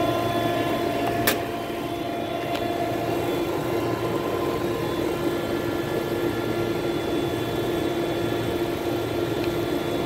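Steady drone of running rooftop refrigeration and air-conditioning machinery, with a few steady humming tones in it and a single sharp click about a second in.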